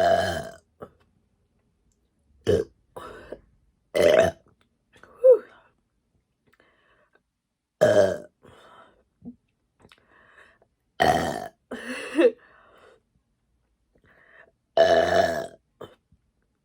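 A woman burping deliberately: a string of about eight loud burps a second to a few seconds apart, a few of them drawn out, on a stomach full from a large seafood meal.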